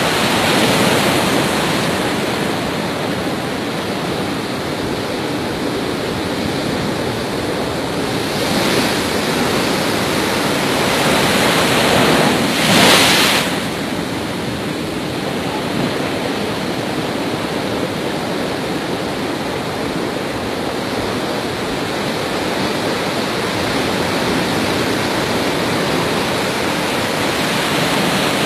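Heavy storm surf crashing against and over a pier: a continuous wash of breaking waves that swells to its loudest in one big crash about halfway through.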